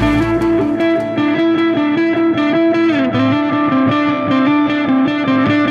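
Background music: a repeating, stepped melody line in a muffled, thinned-out passage without heavy bass.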